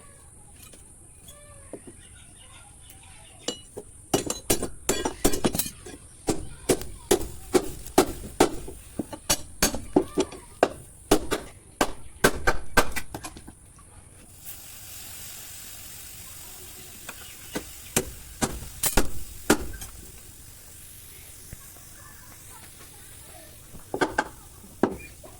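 Hammer blows ringing on a steel blade, quick and irregular, several a second for about ten seconds, then a few scattered strikes later on.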